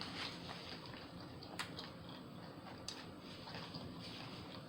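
Close-miked chewing of a sub sandwich: soft wet mouth sounds with a few sharp clicks, the sharpest about one and a half and three seconds in.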